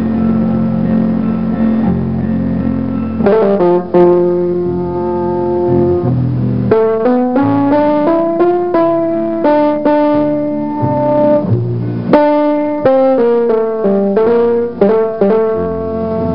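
Instrumental background music: a low held chord, then from about three seconds in a melody of short struck or plucked notes.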